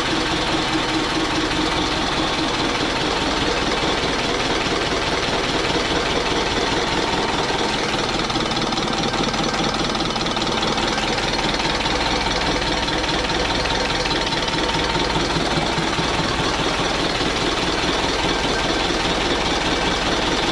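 Old stationary engine running steadily at an even pace.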